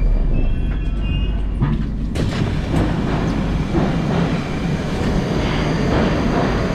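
Metro train doors opening about two seconds in, with a sudden rush of noise. After that comes the steady, dense noise of a station platform with a train standing.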